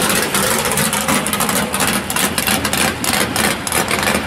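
Engine of a Buick Regal drag car idling with an uneven, pulsing beat as the car rolls by at low speed.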